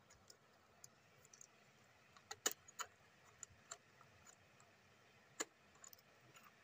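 Quiet handling of a plastic rechargeable torch: a few short sharp clicks and taps, a cluster of three about two and a half seconds in and one more a few seconds later, with fainter ticks between.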